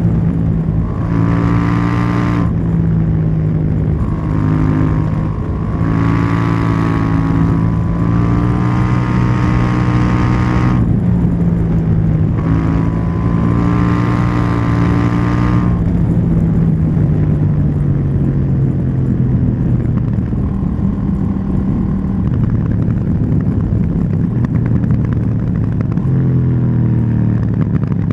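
KTM 790 Duke's parallel-twin engine and exhaust running under way, holding a fairly even pitch with gentle rises and falls. A brighter upper tone comes and goes several times, and the note climbs near the end as the rider opens the throttle.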